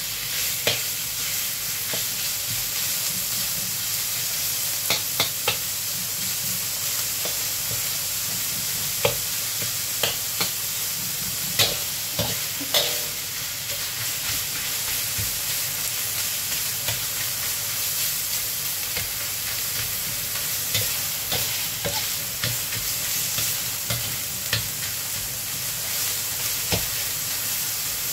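Minced pork sizzling in a hot black iron wok over high heat while it is stir-fried with a metal spatula, with scattered clicks and scrapes of the spatula on the wok. The meat is at the stage of browning until it changes colour and separates.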